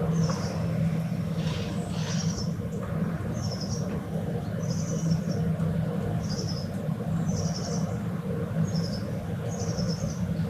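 Morning city ambience: a small bird repeats a short, high, trilled chirping phrase about once a second over a steady low hum of distant traffic.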